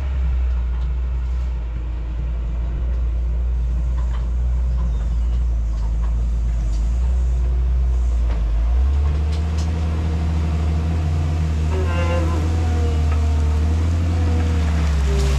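Heavy diesel engine running steadily, its pitch rising about nine seconds in as it is revved up.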